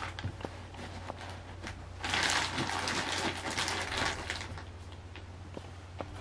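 Clothes rustling as they are handled and packed into a suitcase, loudest for about two seconds in the middle, with a few small clicks, over a steady low hum.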